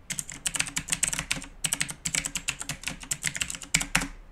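Computer keyboard typing: a fast, uneven run of keystrokes, with one louder keystroke near the end.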